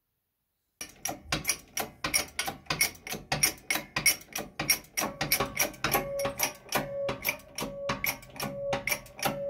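Quick metal-on-metal tapping: a hammer striking a steel punch or drift on an aluminium motorcycle cylinder head's valve gear, about four strikes a second and starting about a second in. From about halfway through, some strikes leave a brief ringing tone.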